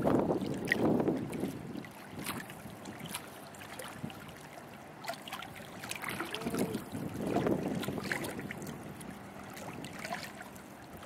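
Small waves lapping and splashing at the water's edge in scattered little clicks and slaps, with wind gusting on the microphone at the start and again about seven seconds in.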